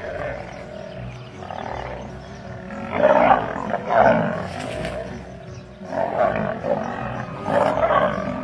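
Male lions snarling and growling while fighting, in separate loud outbursts: two about three and four seconds in, and more around six and eight seconds.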